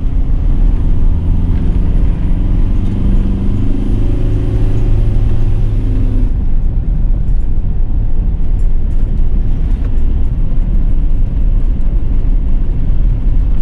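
Camper van's engine running in a low gear with tyre and road rumble, heard from inside the cab; about six seconds in the sound changes suddenly to a rougher, duller rumble.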